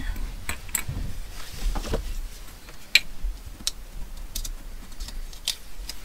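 Glue stick being handled and rubbed onto a paper cutout on a wooden tabletop: scattered light clicks and taps, with a brief soft rubbing about a second and a half in.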